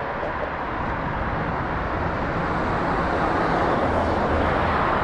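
Jet noise from the Cessna Citation Longitude's two Honeywell HTF7700L turbofan engines: a steady rush of sound that grows slowly louder.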